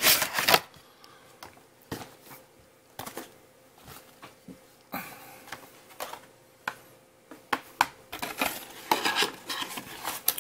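Cardboard gift-set packaging being handled and pulled apart, with a loud rustle at the start and scattered small taps and clicks after it. Near the end a clear plastic blister pack holding a small figure rustles and crinkles in the hands.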